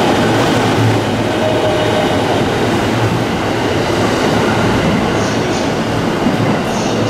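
Electric commuter train (multiple unit) running along a station platform: a steady, loud rumble of wheels and traction motors.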